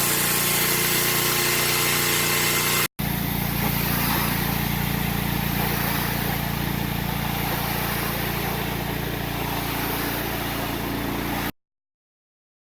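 Pressure washer engine running steadily under the hiss of water spraying from a spinning surface cleaner onto concrete. The sound drops out for an instant about three seconds in and stops abruptly near the end.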